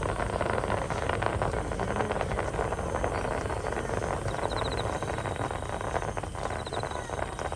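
Fireworks crackling densely: a continuous mass of fine crackles over a low rumble that stops abruptly near the end.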